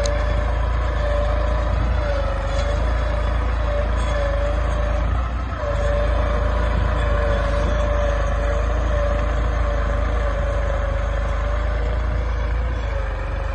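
New Holland 3230 tractor's diesel engine running steadily under load while pulling a two-bottom plough through dry soil: a deep continuous rumble with a steady, slightly wavering whine on top, dipping briefly about halfway through.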